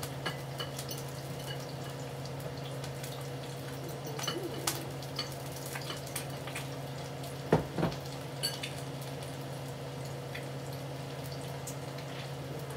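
Bacon frying in butter in a skillet, sizzling with scattered small crackles over a steady low hum. Two sharp knocks sound a little past halfway.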